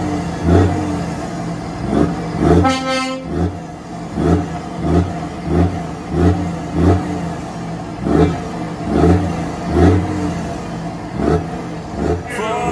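Truck's diesel engine revved in repeated short blips through tall straight exhaust stacks, roughly one to two a second. A brief horn note sounds about two and a half seconds in.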